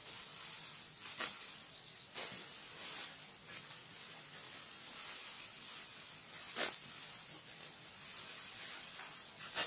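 Dry rice straw rustling and crackling as cut stalks are gathered into a bundle by hand, a handful of short crunches over a steady hiss.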